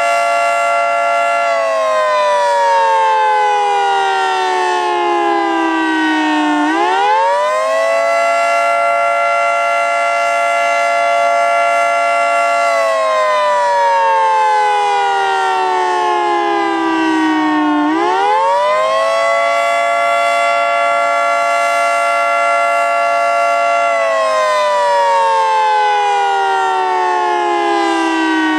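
Federal Signal 2T22 two-tone outdoor warning siren sounding the Attack signal, a rising and falling wail. Its chord holds for about five seconds, slides down over about five seconds, then climbs back up within about a second, repeating roughly every eleven seconds.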